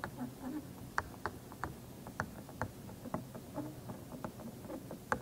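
A pen tapping and scratching on the surface of an interactive whiteboard while a heading is written: a string of light, irregularly spaced clicks.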